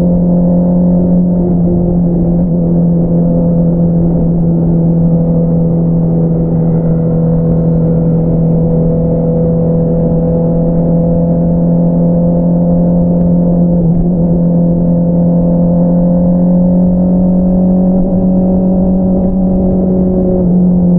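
2022 Honda CBR650R inline-four engine running through an Akrapovič single-outlet exhaust, holding steady revs while cruising, with a brief dip in pitch about two-thirds of the way through.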